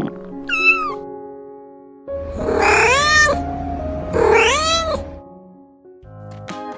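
A cat meowing three times: a short, high meow about half a second in, then two longer meows that rise and fall in pitch, about three and four and a half seconds in.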